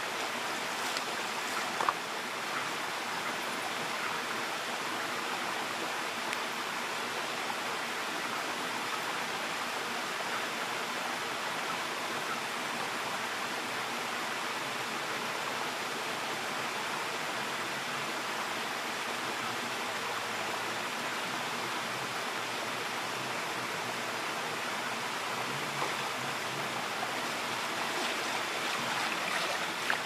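Shallow freshwater creek running steadily over rocks, close to the water surface, with one brief splash about two seconds in.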